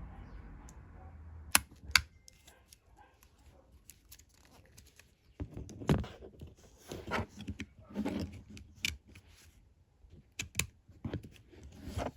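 Clicks and taps from a Nokia 2651 flip phone being handled and its keys pressed: two sharp clicks about a second and a half in, then a run of irregular clicks and taps from about halfway on.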